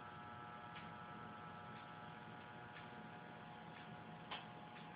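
Quiet room tone with a steady electrical hum, faint ticks about once a second, and two sharper clicks near the end.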